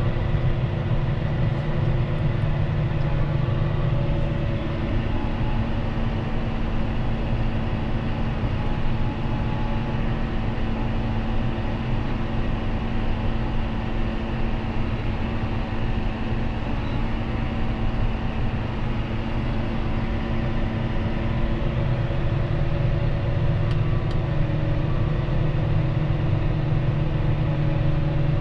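John Deere 6215R tractor's six-cylinder diesel engine running steadily, a continuous drone.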